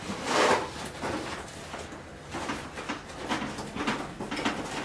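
Handling noise of a cardboard box and metal baking tins being moved about on a counter: a louder scrape about half a second in, then shorter scrapes and knocks.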